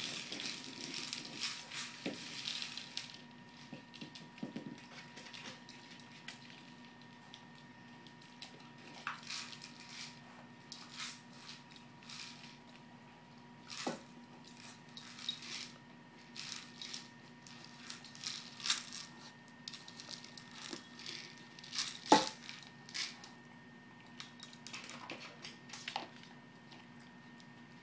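A dog moving about, with many short, irregular metallic clinks and jingles such as collar tags make, over a faint steady electrical hum.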